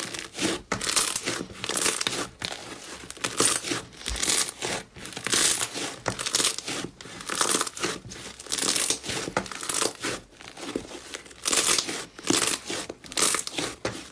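Thick white slime kneaded, squeezed and pressed by hand, giving crackling, crinkly sounds in uneven bursts about every half second to a second.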